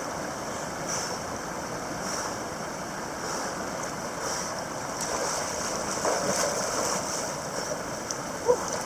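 Mountain creek water rushing steadily, an even hiss of flowing water.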